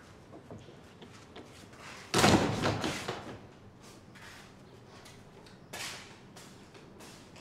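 A heavy riveted door slams shut with a loud thud about two seconds in, ringing on for about a second. Soft footsteps follow, with a softer knock near six seconds.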